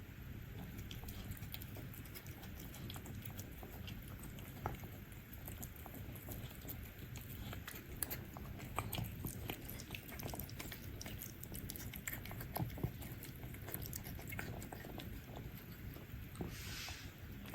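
Cats eating up close: a steady run of small chewing clicks, with a short breathy noise near the end.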